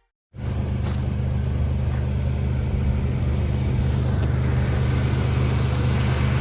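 Kubota ER211 combine harvester's engine running steadily, cutting in abruptly about a third of a second in after a moment of silence.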